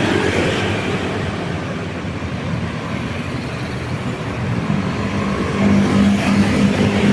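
Road traffic rushing past, with a vehicle's engine hum rising in level from about two-thirds of the way in as it draws near.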